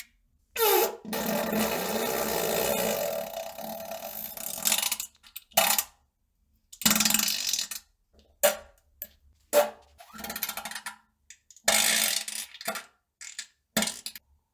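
A string of fart sounds of varying length, separated by abruptly cut silent gaps. A long fart of about four seconds comes near the start, followed by a run of shorter ones.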